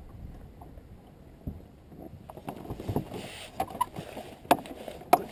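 Hobie Mirage pedal drive being handled in its kayak well: after a quiet low rumble of water on the hull, a run of sharp plastic-and-metal knocks and clicks starts about two seconds in as the drive is worked loose, with a short rush of water around three seconds.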